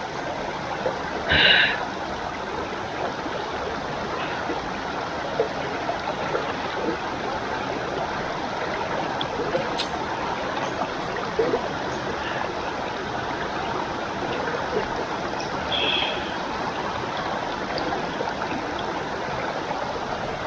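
Steady rush of river water cascading over rocks at a waterfall. A brief higher-pitched sound stands out about a second and a half in, and a fainter one near the end.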